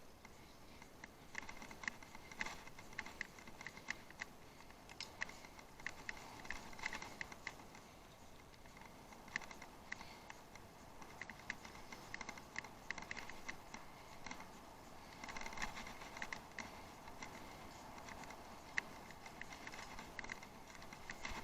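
Bicycle riding over rough off-road ground: a steady run of irregular light clicks and rattles, thicker in a few stretches.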